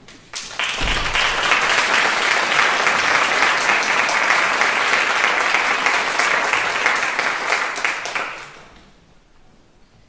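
Audience applauding, a dense patter of many hands that starts within the first second, holds steady and dies away over about a second near the end.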